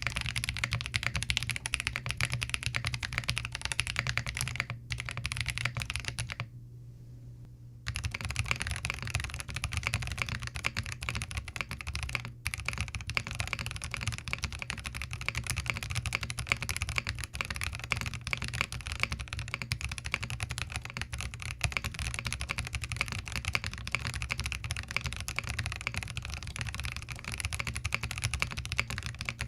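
Continuous typing on a Zoom TKL mechanical keyboard fitted with Boba U4T tactile switches, a dense clatter of keystrokes. It stops for about a second and a half roughly a quarter of the way through, then carries on.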